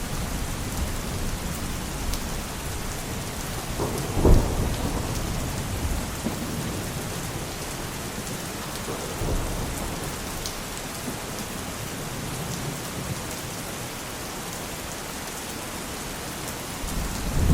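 Steady heavy rain with rolling thunder. A short, louder thunder crack comes about four seconds in, and a low rumble builds again near the end.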